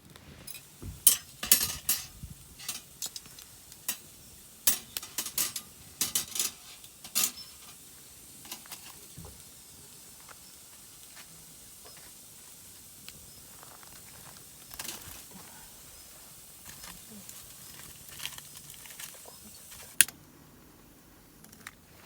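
Cookware and utensils clinking and knocking while a hotpot dinner is prepared: a quick run of sharp clinks in the first seven seconds or so, then scattered light knocks, and one sharp click near the end.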